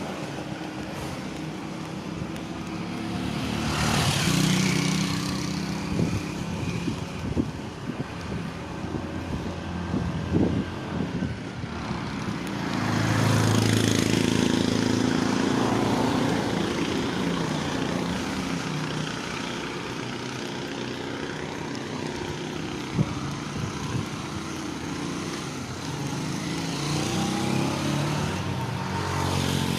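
Street traffic: motor vehicles driving past with a steady engine hum, one passing loudly about four seconds in and another swelling up and fading about halfway through.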